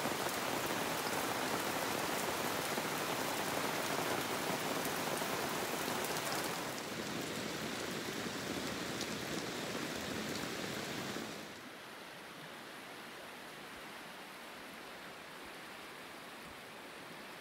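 Steady heavy rain falling on forest foliage, a dense hiss with faint scattered drop ticks. About two-thirds of the way through it drops to a quieter, steady rushing.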